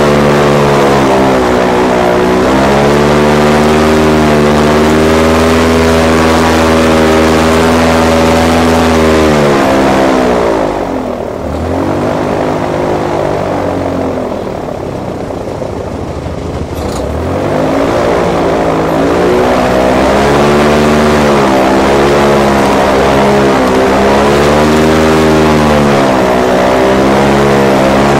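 Airboat engine and propeller running hard, the pitch wavering up and down. About ten seconds in the throttle backs off to a low run, then opens up again some seven seconds later.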